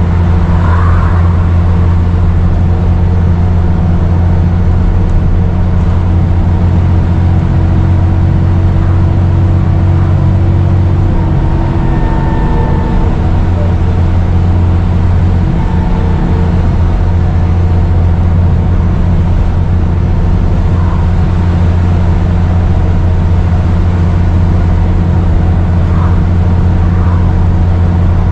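Dennis Trident 2 double-decker bus engine running steadily under way, a loud low drone, with a slight turbo whistle: faint high tones that come and go.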